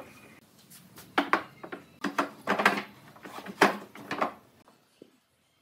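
Pine boards and steel pipe clamps being handled on a workbench: a series of sharp wooden knocks and clunks as the boards are set down against each other and onto the clamps, which stop about a second before the end.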